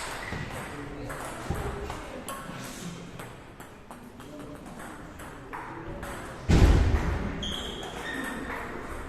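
Table tennis balls clicking sharply off the table and rackets in quick, irregular hits in a large hall, with one heavy thump about six and a half seconds in that is the loudest sound.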